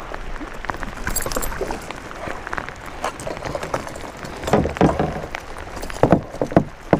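Heavy rain pattering on the lake and the kayak, with handling knocks and thumps against the plastic hull as gear is moved. The loudest knocks come in a cluster about two thirds of the way in.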